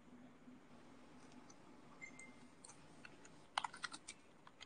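Near silence with faint light clicks: a few scattered ticks, then a quick cluster of clicks about three and a half seconds in, like typing or tapping.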